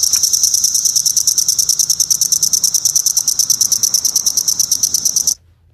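Recorded cicada call: a loud, rapid pulsing buzz of about ten pulses a second that cuts off abruptly near the end.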